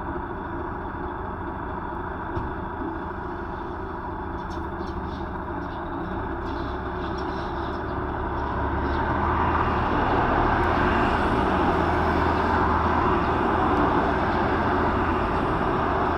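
Steady low roar of engine traffic that grows louder about eight seconds in, with faint, short, high chirps from Eurasian tree sparrow nestlings a few seconds in.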